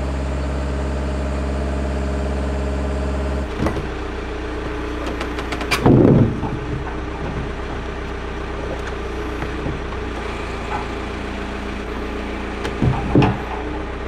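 A large engine running steadily, its note changing abruptly about three and a half seconds in, with louder surges near the middle and again near the end.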